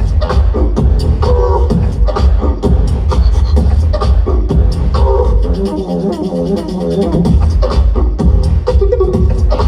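Live vocal beatboxing: a heavy, pulsing bass beat under rapid sharp percussive hits. About five and a half seconds in, the bass drops away and a pitched, wavering vocal melody carries on alone for about a second and a half, then the full beat comes back.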